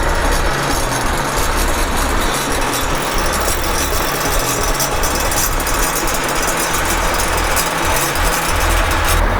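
Road grader's heavy diesel engine running steadily, its sound changing abruptly just before the end.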